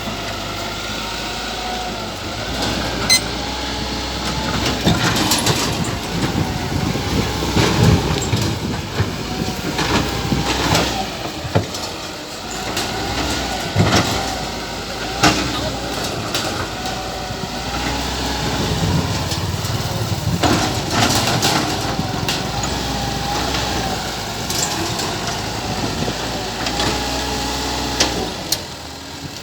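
Radio-controlled model excavator's electric motor whining, its pitch wavering up and down as it works, with scattered clicks and knocks throughout.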